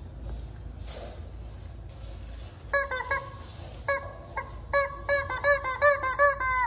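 Rubber chicken squeeze toy squawking: a few short honking squeaks starting nearly three seconds in, then a quick run of them near the end.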